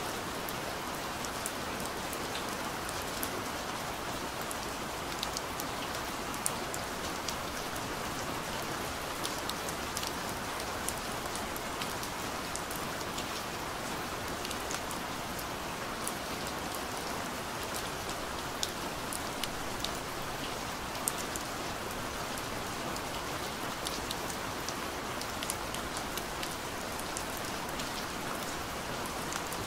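Steady rain falling, with scattered sharp drop ticks throughout.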